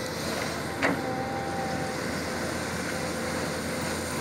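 Volvo EC210B excavator running and working its bucket in crushed stone, with one sharp knock about a second in and a steady whine from the machine after it.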